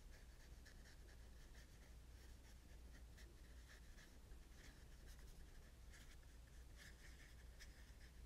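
Faint, irregular scratchy strokes of a small paintbrush dabbing thick paint onto paper, over a low steady hum.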